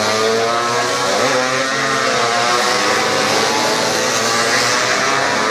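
Several classic two-stroke racing motorcycles passing at high revs, their engine notes overlapping and rising and falling as they accelerate through a corner.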